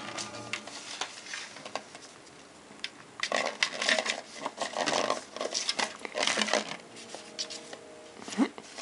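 A kitten scrabbling in a bowl of wrapped candy: wrappers crinkling and candy and toys clicking and rattling against the bowl in irregular bursts, busiest in the middle.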